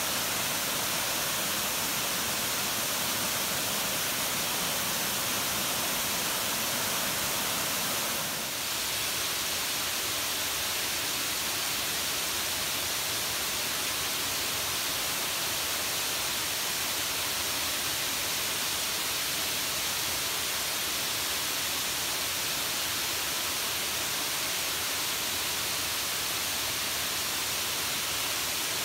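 Water overflowing a dam spillway, pouring down the concrete wall and splashing over rock steps into the pool below: a steady rushing hiss, with a brief dip about eight seconds in.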